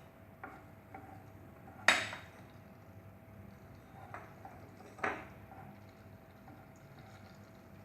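A few scattered clinks and knocks of a utensil against a cooking pan, the loudest about two seconds in and another about five seconds in, over a faint steady background.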